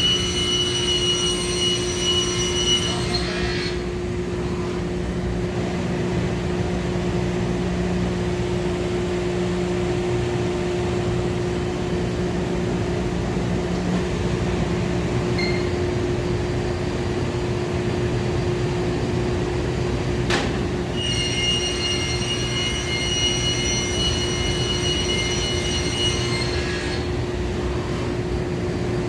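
Woodworking saw machinery cutting MDF sheet, running with a steady hum. A high-pitched whine cuts out about three seconds in and returns from about two-thirds through until near the end, with a single sharp click just before it returns.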